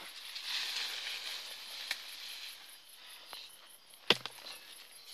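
Rustling through dry brush, with a sharp knock about four seconds in, over a steady high-pitched pulsing of night insects.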